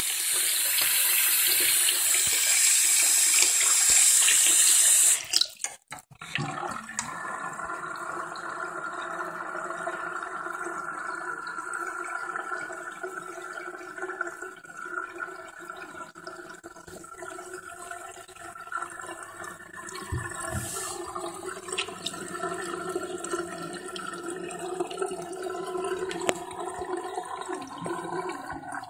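Bathroom tap running into a filling sink basin, shut off about five seconds in. After that a quieter, steady water sound continues.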